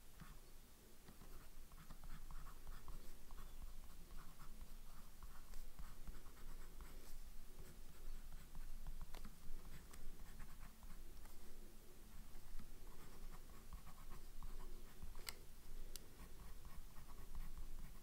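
A Pilot E95S fountain pen's medium nib writing on a small paper card, scratching softly in short, broken strokes as letters are formed. Two sharp ticks come near the end.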